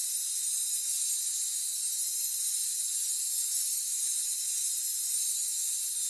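A steady, even high-pitched hiss with no music, beat or voice in it.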